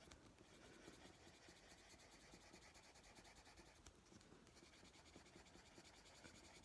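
Faint scratching of a soft-core coloured pencil (Prismacolor dark brown) on the paper of a colouring book, worked lightly in small circles to shade.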